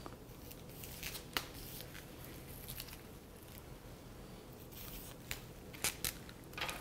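Faint rustling of flower stems, leaves and raffia string as a hand-tied bouquet is handled and bound, with a few light clicks, one about a second in and several near the end.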